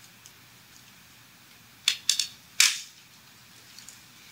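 Four sharp plastic clicks in quick succession about two seconds in, the last one loudest: a stylus tapping and striking a tablet screen while handwriting an equation.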